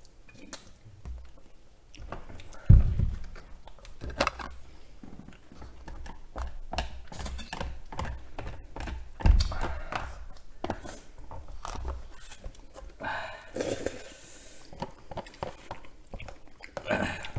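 Eating sounds: chewing, and chopsticks scraping and tapping in a plastic takeout tray of noodles, with many small clicks. Two dull thumps stand out, about three seconds in and again about nine seconds in.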